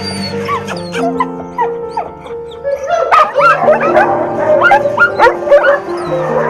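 Several kennel dogs barking and yelping in short, high-pitched calls over steady background music. The calls start sparse and grow louder and much busier about three seconds in.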